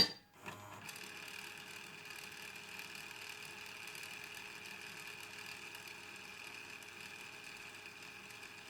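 Faint steady hiss with a light hum from a car stereo's output with no programme playing, just after music cuts off abruptly at the start.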